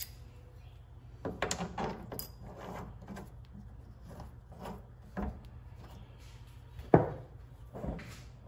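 Small metal parts being handled and fitted by hand: scattered clicks, taps and scraping as a spacer and bolt are set onto the lathe's compound slide, with one sharp click about seven seconds in.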